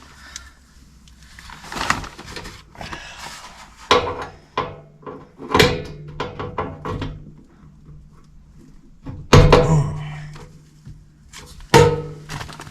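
Knocks and clunks of hands and tools working inside an air handler's sheet-metal blower housing, reaching for the blower capacitor. There are several sharp strikes, the loudest about two-thirds of the way through and another near the end.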